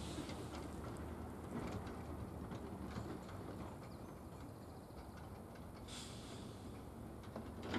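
Faint, steady low rumble of a train running away into the distance, with a brief high rustle about six seconds in.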